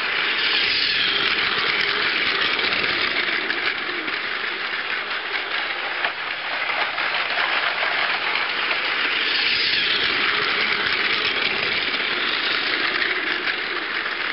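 Plarail battery-powered toy Shinkansen running on plastic track: a steady whirring of its small electric motor and gears with the rattle of plastic wheels. It swells a little louder about a second in and again about ten seconds in.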